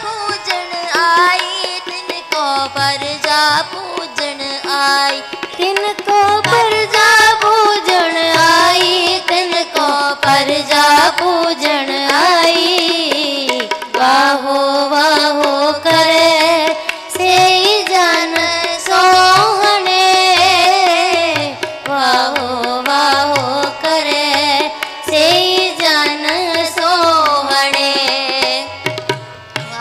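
Sikh kirtan: voices singing a shabad to harmonium accompaniment, with tabla keeping a steady rhythm.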